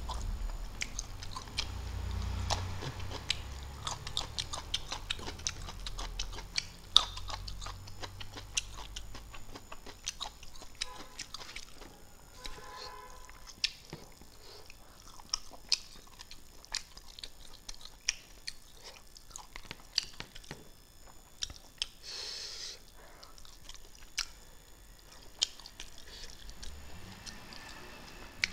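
Close-miked chewing and lip-smacking of a person eating boiled fish by hand: a steady run of small wet smacks and clicks, with a short breathy sound about three quarters of the way through.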